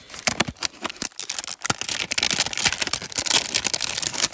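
Cardboard trading-card hanger box being opened by hand and its plastic-wrapped stack of cards pulled out: quick clicks, crackling and rustling of cardboard and wrapper, busiest from about two seconds in.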